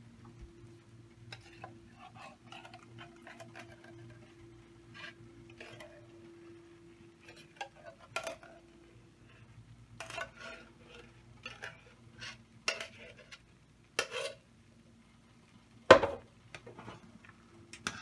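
Metal spoon scraping and clinking against a stainless saucepan and a soup can as condensed cream of chicken soup is spooned into rice and stirred. Scattered knocks come throughout, with a sharp one near the end the loudest, over a steady low hum.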